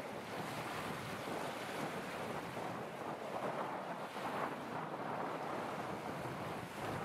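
Wind rushing on the microphone over choppy open water, a steady noise that rises and falls slightly with no distinct engine tone.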